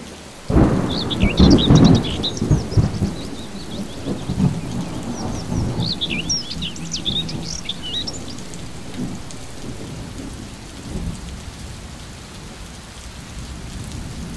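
A loud thunderclap about half a second in, rumbling and fading away over several seconds, over steady rain. High chirping bird calls come in two spells, near the start and again around six seconds in.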